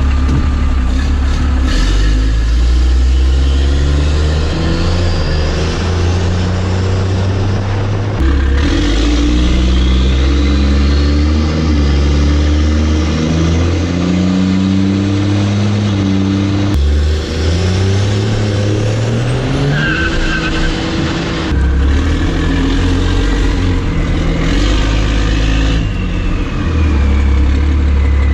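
Cummins diesel pickup accelerating hard, its engine note climbing and dropping back several times as it shifts up, with a rising whistle above it. The first few seconds are through the exhaust with its resonator in; after a cut it runs with a straight pipe.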